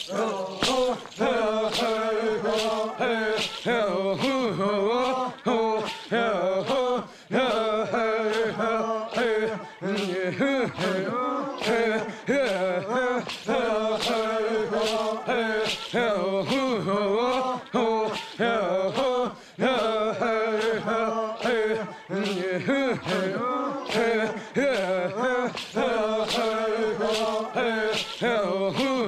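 Panará villagers' group chant: many voices singing together in unison over a steady, regular beat, continuing without pause.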